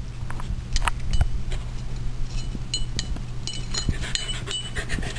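Small metal tags on a Boxer puppy's collar jingling in short clusters of clinks as it moves its head, with a few soft taps, over a steady low hum.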